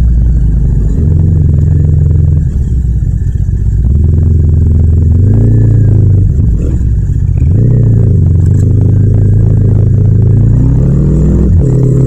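Yamaha MT-07's parallel-twin engine running while riding, its note rising and falling several times as the throttle is worked, with a deeper dip and climb in pitch about two-thirds of the way through.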